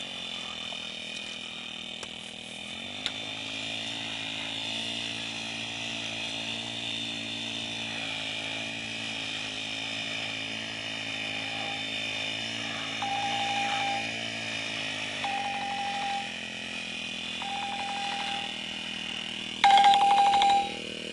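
Small four-stroke brush cutter engine, a Honda GX35 type, running steadily. Its speed picks up about three seconds in and drops back a little past the middle. In the second half a high tone sounds in several short spells, the last one loudest near the end.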